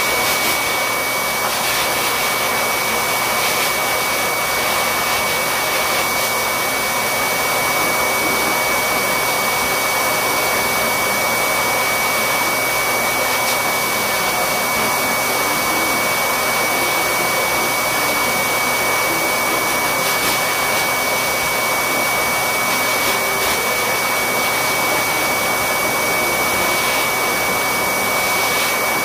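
Corded electric pet clippers running steadily, their motor and blade giving a continuous whirring hum with a thin high whine, while trimming a Yorkshire terrier's coat.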